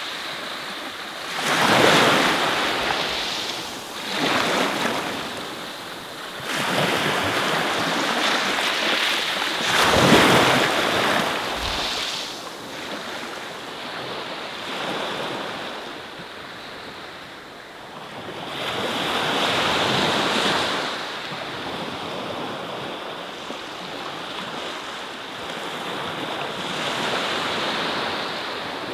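Small waves breaking and washing up a pebble beach, swelling and easing every few seconds and loudest about ten seconds in, with some wind on the microphone.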